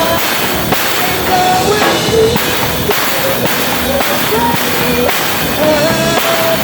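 Drum kit played along to a pop-rock song, with drum hits on a steady beat under the song's wavering melody line.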